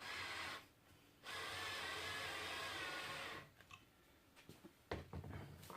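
Power drill-driver running in two bursts, a short one and then a steady one of about two seconds, driving a pocket screw into the wood. A few light clicks follow near the end.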